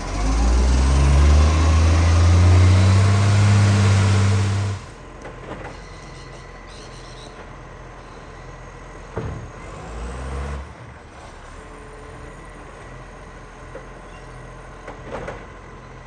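Garbage truck's diesel engine pulling away hard, its pitch rising for about five seconds over a loud exhaust leak. The sound then drops off suddenly to a much quieter distant engine hum with a few knocks.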